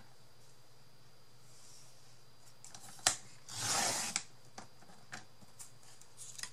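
Sliding paper trimmer cutting scrapbook paper: a sharp click about three seconds in, then a short swish as the blade runs along the rail through the paper. A few light clicks and rustles of the paper being handled follow.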